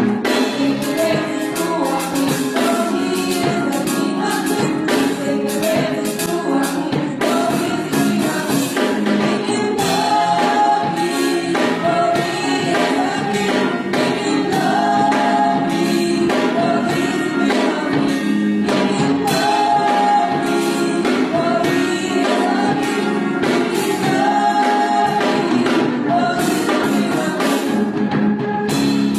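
Christian worship song: a choir singing over band accompaniment with a steady beat.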